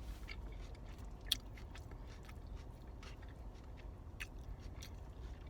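A person chewing a mouthful of food close to the microphone, with many small wet mouth clicks and one sharper click about a second in.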